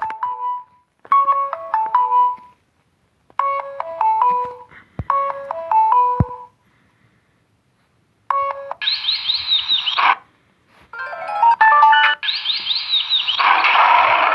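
Samsung Galaxy Fame Lite ringtones playing through the phone's speaker: a short melody of quick notes repeats three times. After a pause of about two seconds a different ringtone starts, made of quick falling chirps over a hiss with a brief run of notes in the middle.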